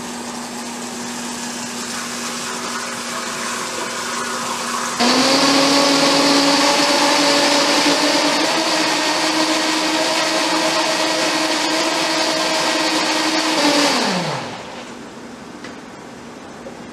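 Waring 3.5-horsepower variable-speed commercial blender running at low speed while heavy cream is poured in, then turned up about five seconds in: louder, with a steady whine that creeps slightly higher as it blends powdered chocolate and cream into ganache. About fourteen seconds in it is switched off and winds down, falling in pitch.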